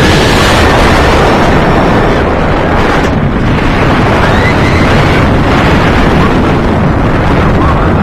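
Heavy wind rushing and buffeting over the microphone as a steel dive coaster's train speeds through banked turns, over a low rumble of the train running on its track.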